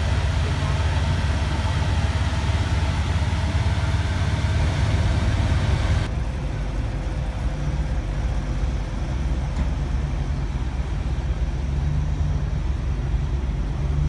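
A vehicle engine idling with a steady low rumble, over outdoor parking-lot noise. About six seconds in, the higher hiss drops away abruptly and the low rumble carries on.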